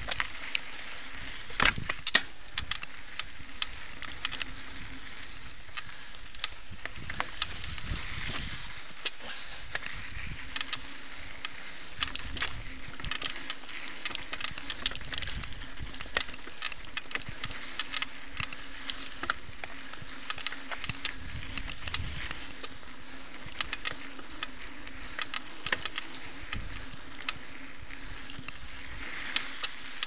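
Mountain bike ridden fast over a dirt singletrack: a steady run of irregular rattles and clicks from the bike jolting over bumps, over the rumble of the tyres on the dirt.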